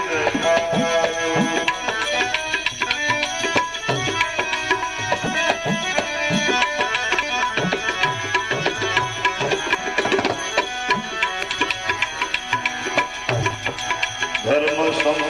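Tabla playing a brisk rhythmic interlude, its bass drum strokes bending in pitch, under a melody instrument holding steady notes, between sung lines of a Gujarati bhajan.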